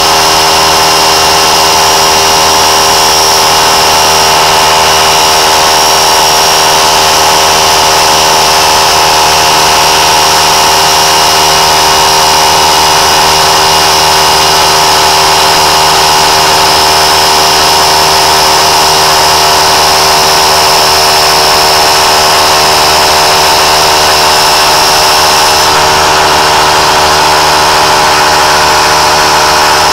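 McGraw 3-gallon 1/3 HP oil-free pancake air compressor running continuously, its motor and pump filling the empty tank on the way to 60 PSI. It is a loud, steady drone with no change in pitch.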